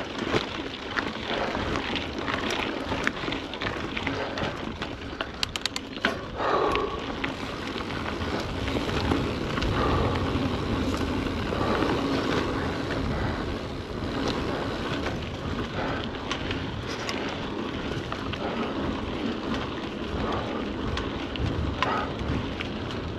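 Mountain bike riding along a dirt trail: continuous rolling and rushing noise, with scattered knocks and rattles as it goes over bumps.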